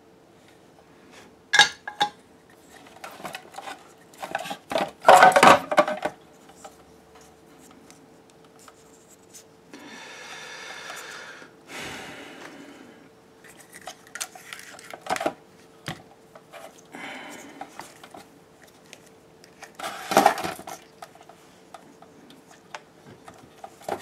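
Scattered clicks, knocks and light clatter of hard plastic and metal parts handled on a workbench during soldering, loudest in a cluster about five seconds in. A soft rustle comes around the middle, over a faint steady hum.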